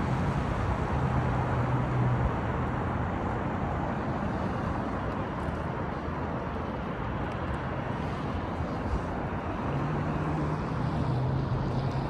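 Road traffic noise: a steady hum of passing cars, with a low engine drone that swells about a second in and again near the end.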